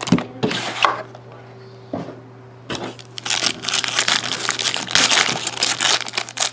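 Foil wrapper of a hockey card pack being crinkled and torn open by hand, in a short burst at the start and then almost continuously from about three seconds in. A faint steady hum sits underneath.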